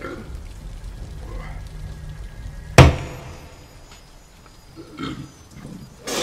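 A man retching and vomiting: a loud, sudden heave about three seconds in, then two shorter throaty gags near the end.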